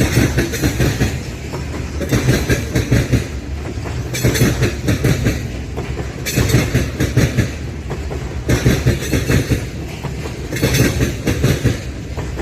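Freight train cars rolling past, wheels clattering over the rail joints. The clatter swells in a regular rhythm about every two seconds as each car's wheel sets go by.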